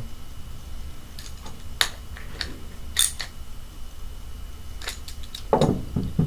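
A handful of sharp metallic clicks and taps as a wrench tightens a new burst disc onto a Crossfire Stealth paintball regulator, the loudest two about two and three seconds in, then the wrench is set down on the table.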